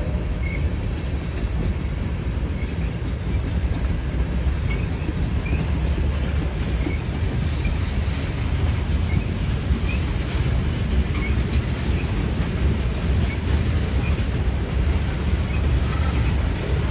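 Freight train tank cars rolling past on the rails: a steady, heavy low rumble of steel wheels on track.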